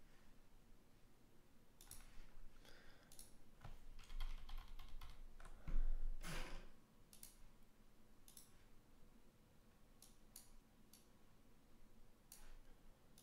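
Irregular light clicks and taps, denser around the middle, with a soft low thump about six seconds in.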